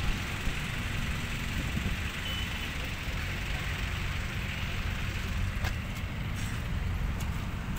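Light truck's engine idling steadily, with a few faint clicks a little past halfway.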